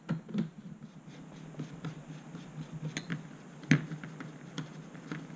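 Small screwdriver driving 3x10 mm screws through a carbon-fibre drone frame's top plate into its standoffs: faint scratching and scattered small clicks, with a sharper click about two-thirds through.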